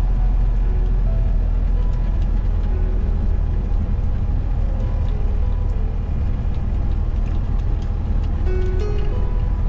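Heavy tractor-trailer truck's diesel engine droning steadily, heard from inside the cab while hauling a load of about 22 tonnes. Music with a melody plays over it.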